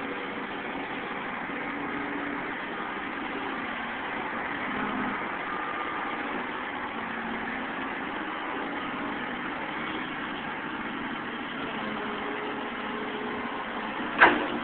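Caterpillar 235 excavator's diesel engine running steadily as it works, heard from some distance. One sharp knock near the end.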